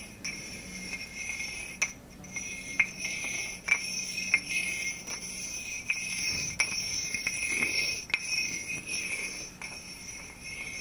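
A steady, high, shimmering bell-like ringing, like small bells or chimes, under scattered light clicks and taps as selenite wands are handled close to the microphone.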